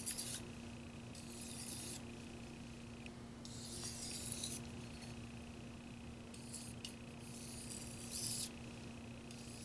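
Carbon-steel knife edge scraping across a wet 2000-grit Shapton Pro whetstone in about half a dozen short strokes with brief pauses between: the sharpening stage where the burr is raised and broken off.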